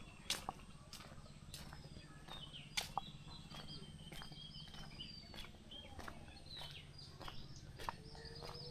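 Footsteps on a brick road, a short tap about every half second, with small birds chirping. A steady low hum runs underneath.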